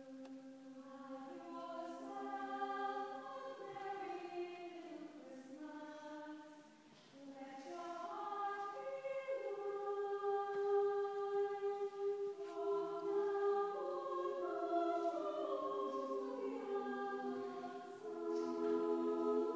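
Choir singing a Christmas song a cappella in a church: slow, sustained chords in long phrases, with a brief breath pause about seven seconds in.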